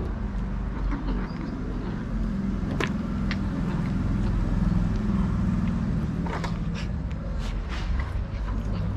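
Cats eating wet food from a plate, with scattered short wet chewing and licking clicks, a sharp one about three seconds in and a cluster later on. Under it runs a steady low rumble.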